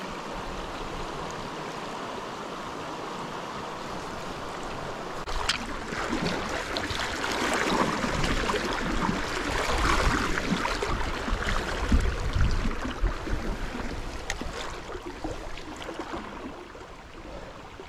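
River water rushing and churning around the wading angler. It is steady at first, then grows louder and rougher with low rumbles from about five seconds in, and eases off near the end.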